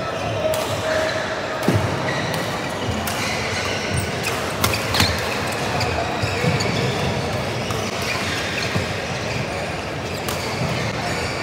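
Busy badminton hall din: scattered sharp racket hits and knocks from the courts over a steady background of voices.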